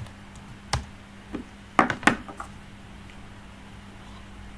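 A few sharp clicks from computer input while browsing, about five of them in the first half, the loudest two close together, over a faint steady hum.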